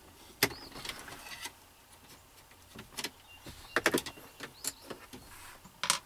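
Scattered sharp plastic clicks and rattles from the dash cup-holder tray of an 80-series Toyota Land Cruiser as a screwdriver works its screws loose, with a brief thin squeak a little past halfway.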